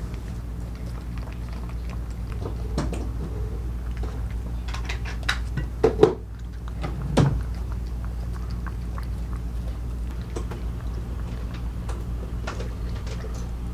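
A small dog eating dry kibble from a stainless steel bowl: crunching and irregular clinks of kibble and muzzle against the metal, with a few louder knocks about halfway through.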